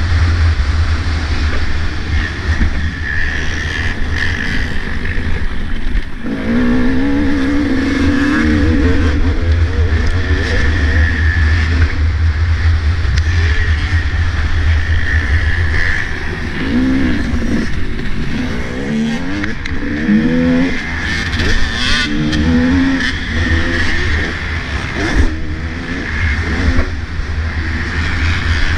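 Two-stroke motocross bike's engine revving up and falling back again and again as it is ridden hard, under a heavy low wind rumble on the helmet-mounted microphone. A few sharp knocks cut in, the clearest around two-thirds of the way through.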